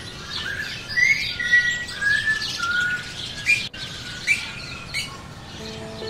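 Several small birds chirping, with many short overlapping calls and quick pitch glides. There is a brief break about halfway through.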